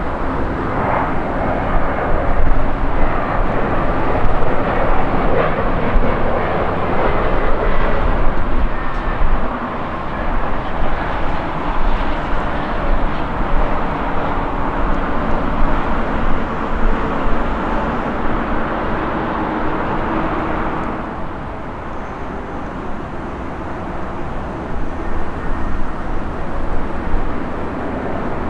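Embraer E-Jet regional jet's twin turbofan engines running on final approach as it passes low overhead: a loud, steady jet rumble that eases off after about 21 seconds.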